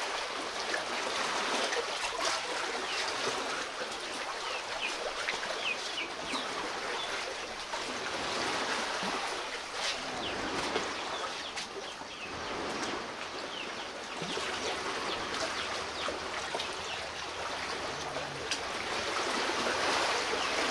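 Choppy lake waves lapping and splashing at the shore, a steady watery rush with no pauses.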